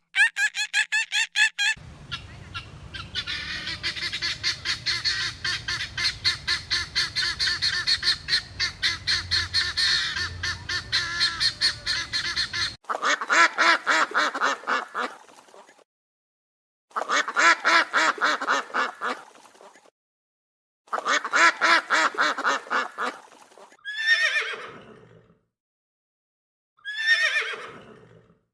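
Farm poultry calling: a long run of rapid pulsed calls over a low rumble, then three separate bursts of rapid pulsed calling with silent gaps between them, and two calls that fall sharply in pitch near the end.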